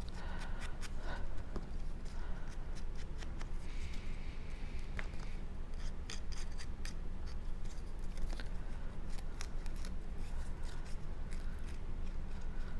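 Scissors snipping cardstock: a run of short, irregular crisp clicks and snips as paper is cut and handled.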